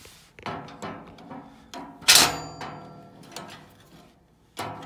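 A metal hand tool clicking and knocking against the wood stove's sheet-metal panel at the fan speed control, with one sharp metallic clank and brief ring about two seconds in, and another knock near the end.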